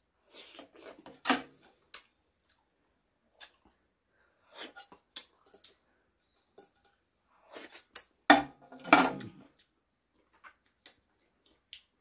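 Close eating sounds of a person eating orange pieces and licking a plate clean: mouth noises and chewing, with light clicks of the plate. The two loudest mouth sounds come about eight and nine seconds in.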